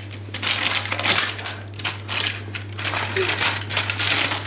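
Greaseproof paper crinkling and rustling as hands press and smooth it into a greased baking tray, in irregular crackles.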